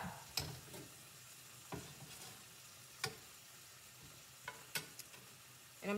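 Country Crock butter sizzling faintly as it melts in a hot nonstick skillet, with a metal spoon clicking against the pan about five times as the butter is pushed around.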